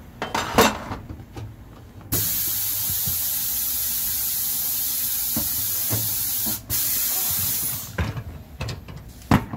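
Compressed air hissing steadily for about six seconds as a tyre changer's pneumatic bead breaker is worked to push the tyre bead off the alloy rim, with a brief break shortly before it stops. A few sharp knocks near the start and end come from the wheel being handled against the machine.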